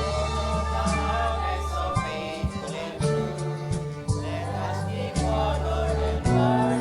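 Church choir singing a gospel-style thanksgiving anthem, with sustained bass notes and regular drum strikes underneath.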